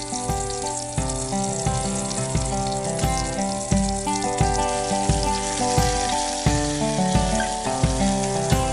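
Background music with a steady beat, over bacon sizzling as it fries in a cast iron skillet.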